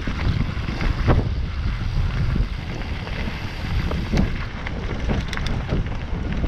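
Wind buffeting the microphone over the rumble of mountain-bike tyres rolling down a dirt trail, with scattered knocks and rattles as the bike goes over bumps.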